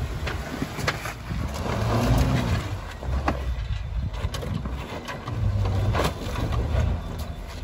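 A Jeep's engine running at low speed as it crawls over rocks, rising and easing off a few times, with scattered sharp clicks and knocks.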